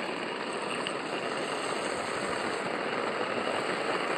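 Steady rain hiss on a boat's deck, with rainwater from a bow rain catcher running through a short hose into the deck water-fill opening for the tank.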